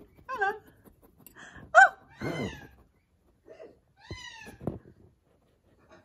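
Small parrot calling: a run of about five short, arching squawks with quiet gaps between them, the sharpest and loudest a little under two seconds in.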